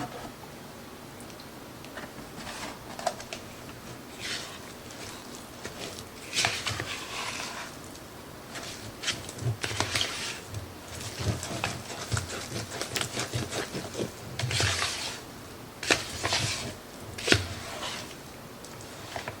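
A spoon stirring thick cornbread batter in a mixing bowl: irregular wet scrapes with small clicks against the bowl, sparse at first and busier from about a third of the way in.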